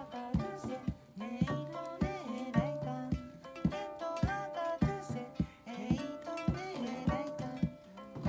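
Tonkori, the Ainu plucked zither, played in a session: a run of plucked notes, some bending in pitch, over a steady beat of low thumps about twice a second.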